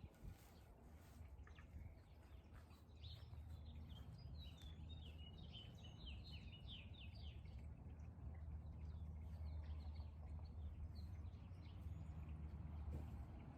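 A songbird singing a rapid run of high chirping notes, starting about three seconds in and thinning out after about seven seconds, over a faint low steady rumble.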